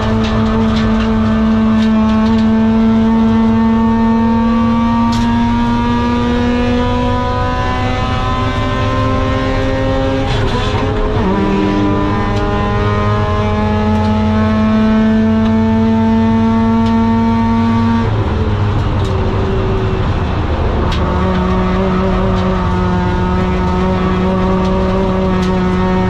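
Mazda RX-8's four-port Renesis rotary engine, breathing through a custom long-tube exhaust with a Borla muffler, pulling hard with its pitch climbing slowly. Upshifts come about ten and eighteen seconds in, each dropping the pitch before it climbs again.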